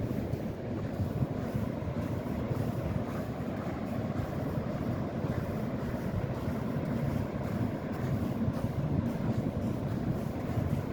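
Steady low rumble of beach ambience: wind on the microphone and surf, with no distinct events standing out.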